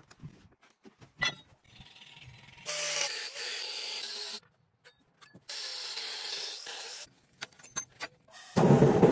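Angle grinder with a cut-off disc cutting steel bar stock, in two stretches of about a second and a half each with a pause between. Just before the end a louder, deeper steady noise starts.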